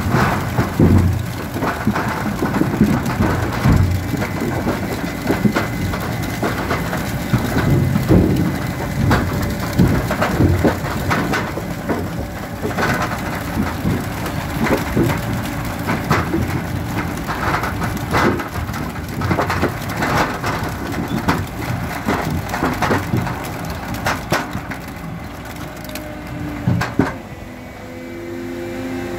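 Sugar beets pouring off the Grimme Rexor 630 harvester's unloading elevator into a trailer: a dense, irregular clatter of beets knocking against each other and the trailer, with the machine's engine running underneath. The clatter thins out near the end, leaving a steady engine hum.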